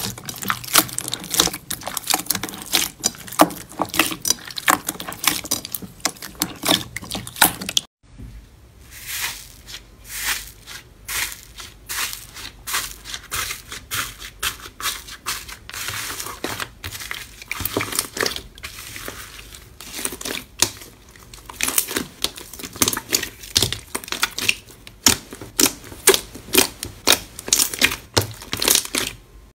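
Hands squishing and kneading slime, a dense run of clicks and crackles. First comes a brown slime studded with small white beads. After a brief break about eight seconds in, fluffy blue cloud slime with green jelly cubes is pressed flat, and near the end a purple slime is stretched.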